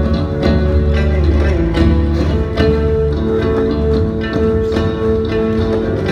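Live band music: guitar and bass over a steady drum beat, with a note held over the band from about two and a half seconds in.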